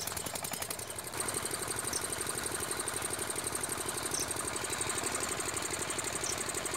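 Kirloskar 8 HP single-cylinder diesel engine, freshly rebuilt and just started, running with a fast, even knocking beat while driving a 5 kW alternator. About a second in it picks up and settles into a louder, steady run.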